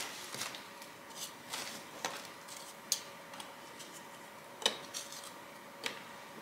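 Crisp Spekulatius biscuits clicking against each other and the baking dish as they are laid by hand into a layer, a handful of light, scattered clicks.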